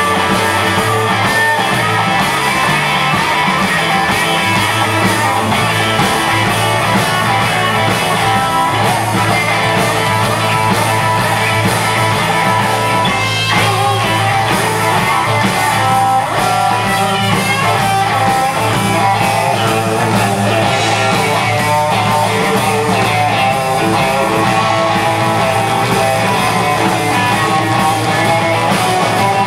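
Live rockabilly band playing an instrumental section of the song: two electric guitars lead over drums and a steady bass line, with no singing.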